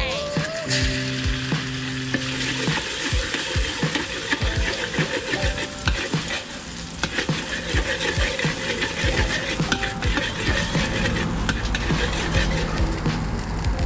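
Egg and chopped garlic sizzling in hot oil in a metal wok, with a metal spatula scraping and clacking against the pan as the egg is stirred and broken up.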